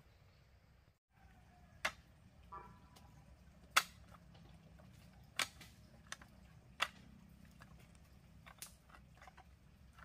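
Pieces of green bamboo knocking and clacking against each other as they are laid on the ground: about six sharp separate knocks, a second or two apart.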